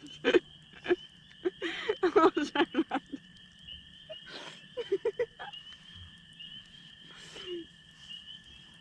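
A steady, high-pitched night chorus of calling animals runs throughout. Short yelps and laughs from people break in over it, loudest about two seconds in and again around the middle.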